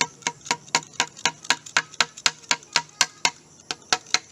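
Hard plastic of a glued motorcycle cover being tapped in a steady rhythm, about four sharp clicks a second.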